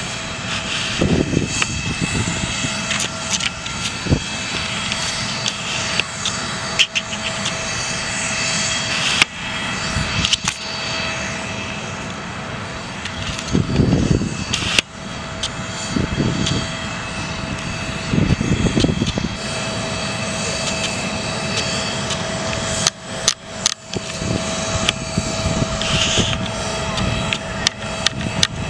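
An aircraft engine runs steadily with a constant whine over outdoor noise. Voices and handling clicks come and go.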